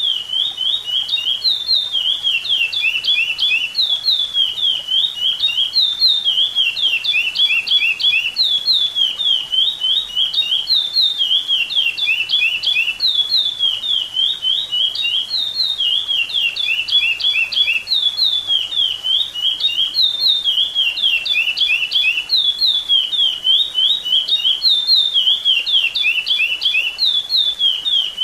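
Chestnut-bellied seed finch (curió) singing its 'repetidor' song: a fast string of short clear whistled notes, the same phrase repeated over and over without a break.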